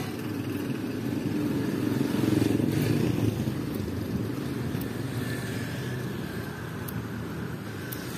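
Street traffic: small motorcycle and motorcycle-sidecar tricycle engines running, swelling about two seconds in and easing off after.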